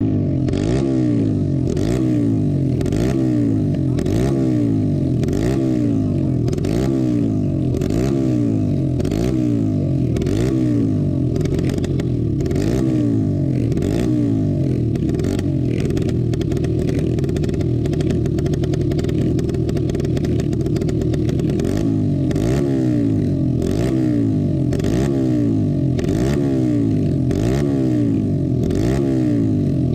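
Racing go-kart engine revved in quick, repeated throttle blips while the kart stands still, about one rise and fall in pitch every second. For several seconds past the middle it holds steadier revs before the blipping resumes.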